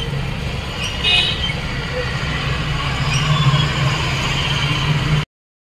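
Street traffic: a steady rumble of passing vehicles, with a brief higher note about a second in. The sound cuts off suddenly near the end.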